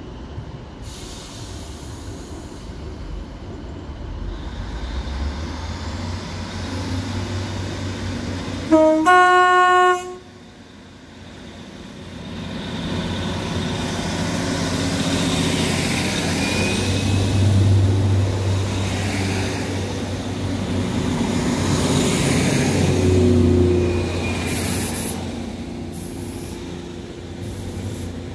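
Northern Class 150 Sprinter diesel multiple unit running past, its underfloor diesel engines humming and its wheels running on the rails. About nine seconds in it sounds a loud two-tone horn for about a second, a short low note stepping up to a higher one. The engine and wheel noise swells as the unit goes by and fades near the end.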